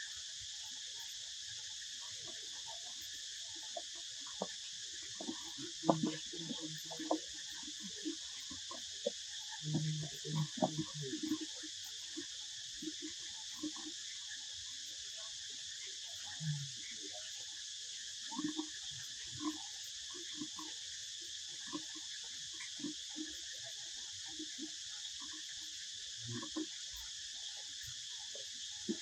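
Steady, high-pitched chorus of insects, with scattered soft knocks and rustles throughout, clustered about six and ten seconds in.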